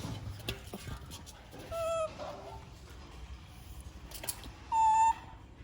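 Pet monkey giving two short, steady-pitched high calls, about two seconds in and again near five seconds, the second higher and louder, among a few light knocks and taps.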